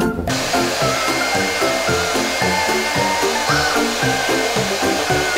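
Handheld Philips hair dryer blowing steadily, switched on abruptly just after the start, with a faint high steady whine over its airflow noise.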